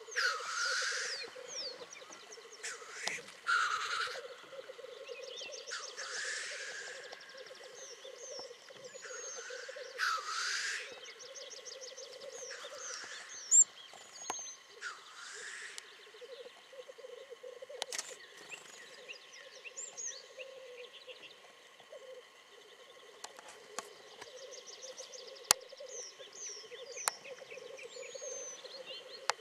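Black grouse cocks lekking: several males keep up a continuous low bubbling coo, broken by loud hissing calls that come about seven times in the first half. A few sharp clicks come later.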